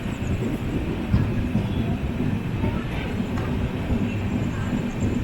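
Steady rumble of a sleeper-class coach running at speed, its wheels on the rails, with a single knock about a second in.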